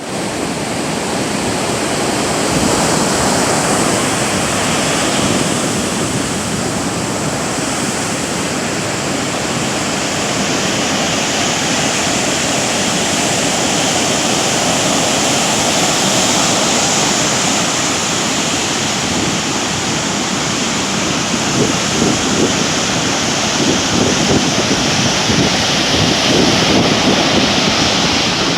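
Heavy surf breaking on a beach in a steady roar, with wind on the microphone. The rough sea is whipped up by strong wind after a typhoon.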